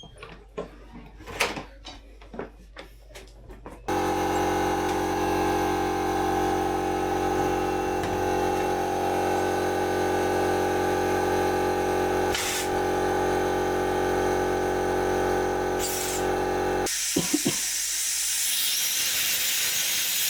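Electric air compressor starting abruptly about four seconds in and running with a steady humming drone. It cuts out near the end, followed by a loud hiss of compressed air blown down a blocked kitchen drain pipe, with too much air escaping around the seal.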